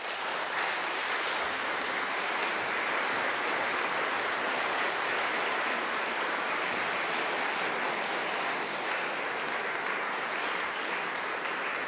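Audience applauding: the clapping swells within the first second and then holds steady.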